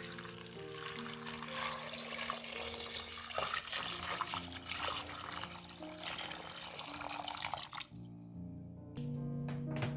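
Water running from a tap into a sink, a steady hiss that cuts off about eight seconds in, over background music.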